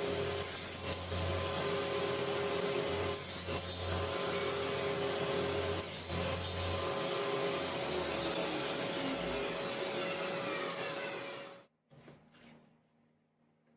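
Chainsaw cutting through a log, running steadily under load, then stopping abruptly near the end.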